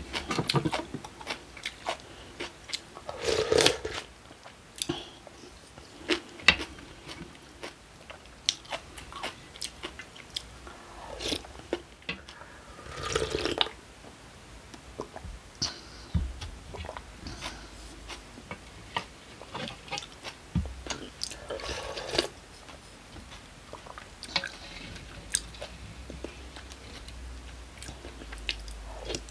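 Close-miked eating: chewing and crunching mouthfuls of cold acorn jelly rice with kimchi and vegetables, full of small wet clicks and crackles. A few louder noisy bursts stand out, about 3, 13 and 22 seconds in.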